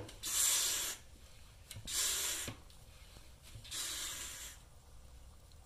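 Vacuum brake bleeder hissing in three short bursts, evenly spaced, as it draws brake fluid and air out through the open caliper bleeder valve.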